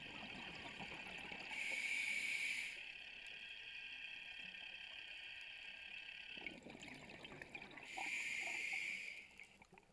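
Scuba diver's regulator breathing underwater: bubbly gurgling exhalations, each followed by a louder hissing draw of air, two breaths about six seconds apart.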